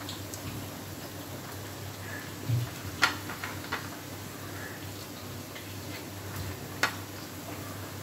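A few sharp clicks and taps of handling at an aluminium cooking pot as fried onions (birista) are put onto the biryani masala, the loudest about three seconds in and another near the end, over a faint steady hiss.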